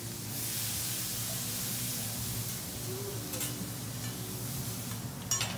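Food sizzling and hissing on a hot teppanyaki griddle as it is flambéed, the hiss strongest in the first couple of seconds and then easing off. A few sharp clinks of a metal spatula on the steel near the middle and the end.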